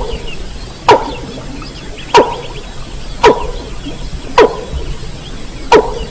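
Call of a mandar rail, played back from a hunters' lure recording: short, sharp calls repeated about once a second, five in all, with faint higher chirping behind them.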